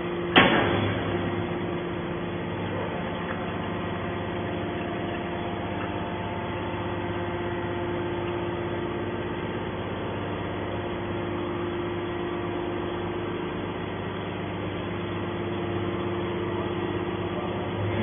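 Hydraulic scrap-metal baler running with a steady hum from its hydraulic power unit as the ram pushes a compressed steel-wire bale out of the chamber. A single sharp bang sounds about half a second in.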